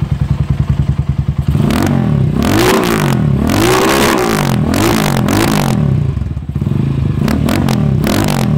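Rusi SS250 motorcycle engine running through a full-system Akrapovic exhaust that has the end dB killer removed and only the inner one left in. It idles with a pulsing beat, then is revved in several quick blips from about a second and a half in. It drops back to idle and gives one more short blip near the end.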